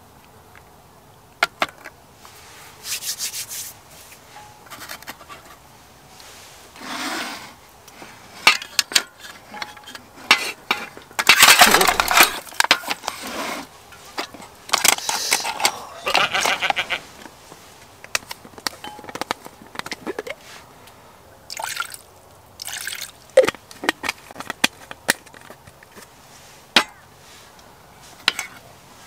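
Sea snail shells clicking and clattering against each other, an aluminium mess tin and a wooden slat table as they are handled with chopsticks. A louder wet noise lasts about two seconds near the middle.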